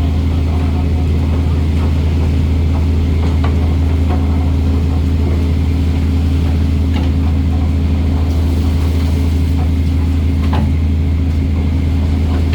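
Fishing boat's engine running steadily with a low, even hum, with a few faint clicks.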